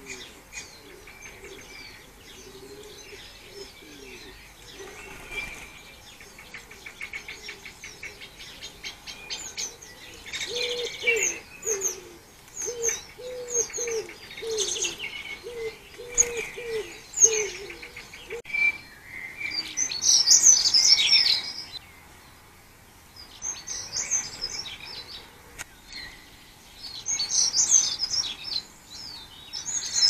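Small garden birds singing and chirping, with a run of low, evenly repeated cooing notes in the middle. The loudest bursts of song come about two-thirds of the way through and again near the end.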